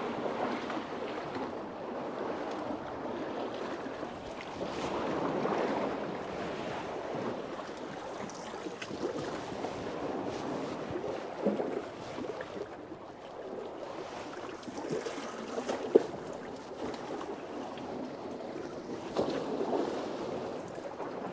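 Water sloshing and lapping, rising and falling in slow swells, with wind on the microphone. Two sharp knocks, one about halfway through and a louder one a few seconds later.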